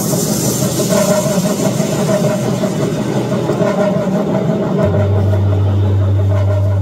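Loud intro of an electronic dance-performance track over a sound system: a dense, steady droning texture, with a heavy bass tone coming in about five seconds in.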